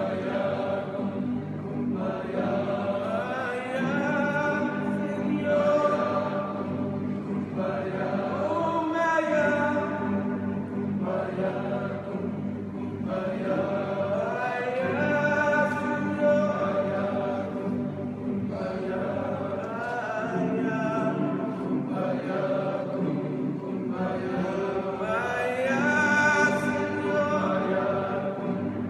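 Men's glee choir singing in four-part harmony (melody, tenors, baritones, basses), in long held phrases that swell and ease.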